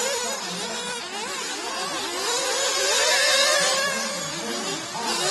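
1/8-scale nitro RC buggy engines buzzing, the pitch rising and falling constantly as they rev up on the straights and back off into the corners.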